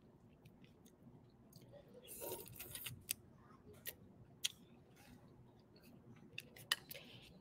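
Faint chewing, with scattered light clicks of a fork against a plastic food container.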